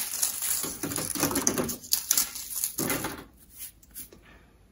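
Freeze-dried white bread being broken and crumbled by hand, a dry crunching crackle, with crumbs falling onto a metal sheet pan. The crunching comes in bursts for about three seconds, then dies down to a few small ticks.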